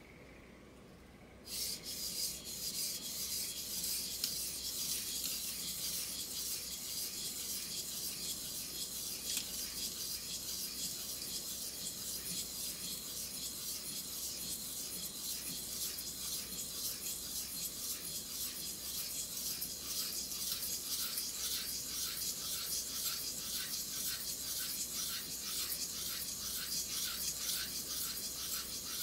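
Steel kitchen knife blade scraping back and forth on a wet whetstone in rapid, steady sharpening strokes, starting after a second or so of quiet.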